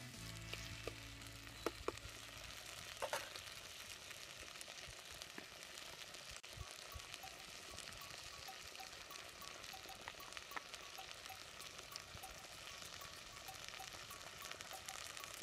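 Chopped onions and tomatoes sizzling in oil in a clay pot over a wood fire: a steady, quiet hiss, with a few sharp clicks in the first few seconds.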